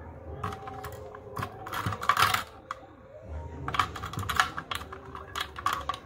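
Clicking and rattling of a clear plastic packaging tray as a milk frother's stainless whisk and USB charging cable are handled and fitted into it. The clicks come in several quick clusters.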